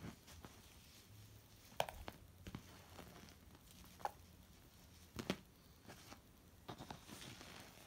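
Faint rustling of lace and ribbon ties being handled on a handmade fabric-covered journal, with a few light, sharp taps, the loudest about five seconds in.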